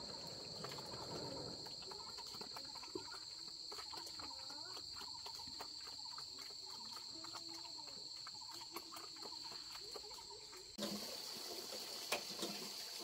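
Forest insects shrilling steadily at a high, even pitch, with a second, higher band above it. Faint short calls sit lower down. The background changes abruptly about eleven seconds in, and a louder hiss follows.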